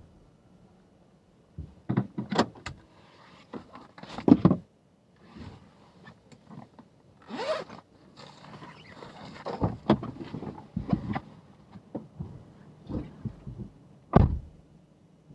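An insulated food-delivery bag being handled inside a car cabin: scattered rustling and clicks, a zip about seven seconds in, and a single heavier thump near the end.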